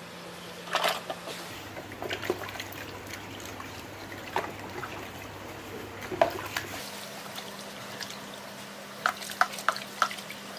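Water splashing and dripping in a basin as an electrical socket is rinsed and brushed in clean water. There are scattered small splashes, then a quick run of sharp drips near the end.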